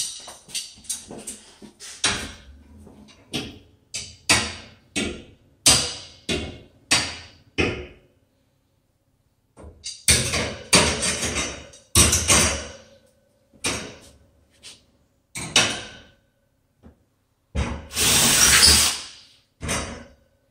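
A run of sharp knocks, about two a second, for the first eight seconds. Then a cordless drill runs in several short bursts and once more for about a second and a half near the end, fastening a wire closet shelf.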